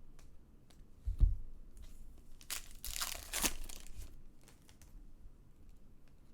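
A trading-card pack's foil wrapper being torn open and crinkled, with a dull thump about a second in and the loudest rustling in the middle.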